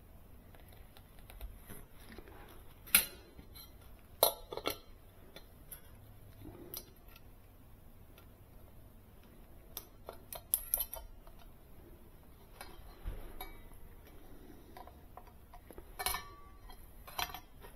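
Scattered light metallic clinks and clicks of small parts and tools being handled during a refrigerator condenser fan motor repair, a few sharp ones about three and four seconds in, a cluster near eleven seconds and more around sixteen seconds.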